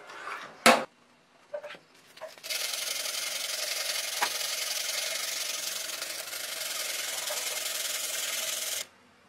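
Sandpaper rubbing steadily along a knife blade, hand-sanding the dark oxide off the steel after its heat treatment, then cutting off suddenly near the end. Before it, in the first two seconds, come a sharp metallic clank and a few light knocks.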